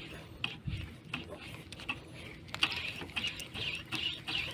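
Spinning reel being cranked during light jigging, a rhythmic mechanical whirring that comes in pulses about three times a second, with small clicks.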